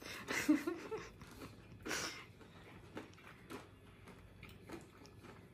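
A man chewing a mouthful of crispy homemade fried chicken close to the microphone. There is a brief murmur of voice at the start, a loud crunch about two seconds in, then softer crackling crunches every half second or so.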